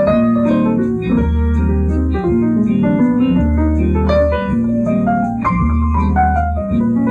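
Instrumental keyboard music with held, changing chords and a deep bass note that comes in about every two seconds.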